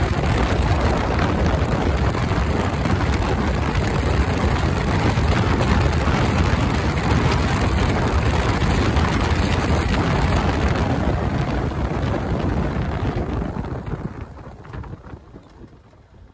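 Wind rushing over the microphone of a Yamaha R15M sport bike at about 105–110 km/h, mixed with its single-cylinder engine running at speed. The noise falls away over the last few seconds as the bike slows down.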